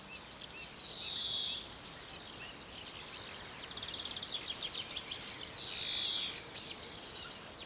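Outdoor birdsong with several birds calling, including falling whistled calls, over a high, rapid chirping repeated in short bursts about twice a second.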